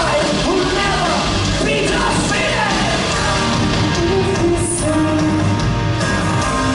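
Three-piece rock band playing live at full volume: electric guitar, bass guitar and drums, with singing over them.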